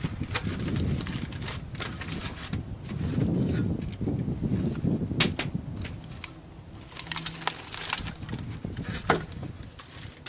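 Aluminium foil crinkling in short, sharp crackles as hands handle a whole fish lying in foil, over a low steady rumble.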